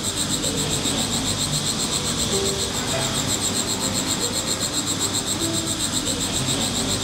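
Insects chirping in a steady, rapidly pulsing high trill, with music of scattered held notes underneath.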